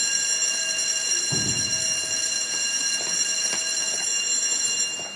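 Electric school bell ringing steadily for about five seconds, a shrill multi-tone ring that starts and cuts off abruptly. A short low thump sounds about a second in.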